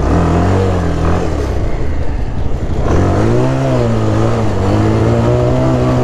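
Motorcycle engine pulling away: it runs low at first, rises in pitch about three seconds in as the bike gathers speed, then holds a steady note.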